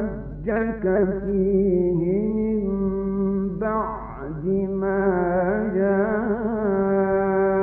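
Male Quran reciter chanting in the melismatic Egyptian mujawwad style. The voice holds long notes, with wavering ornamental turns shortly after the start and again around the middle.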